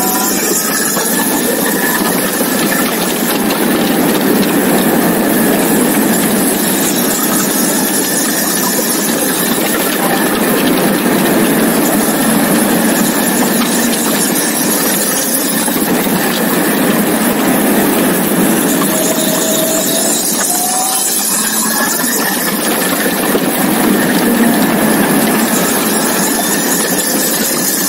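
Motorcycle under way at road speed: the engine runs under heavy wind and tyre noise on the low-mounted microphone, its pitch gliding up briefly a few times with the throttle.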